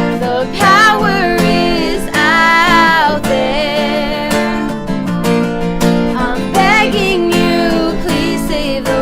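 Strummed acoustic guitar under a woman's singing, with several long, held notes.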